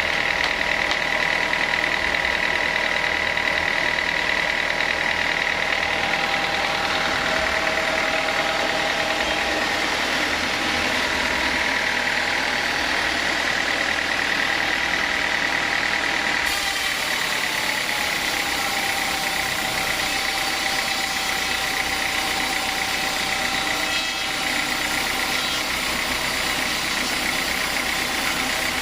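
Sawmill saw running steadily through teak with a high, even whine. A brighter hiss comes in suddenly a little past halfway.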